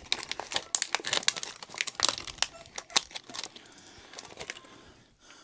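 Plastic hardware bag crinkling and rustling with many sharp little clicks as hands pick bolts and nuts out of it; it dies down after about three and a half seconds.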